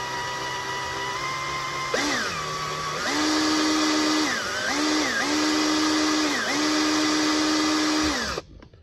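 Handheld power drill turning a left-hand drill bit into a broken soft steel thumb screw, to back the screw out as the bit bites. The motor whines steadily, its pitch sagging and recovering several times under load, and stops abruptly near the end.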